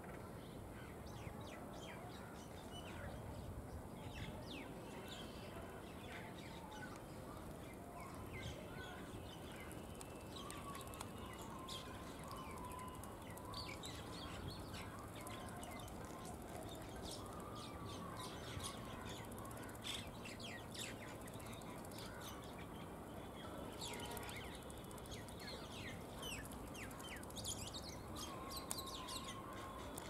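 Birds chirping and calling faintly: many short chirps throughout, with a few longer warbling calls, over a steady low rumble of outdoor background noise.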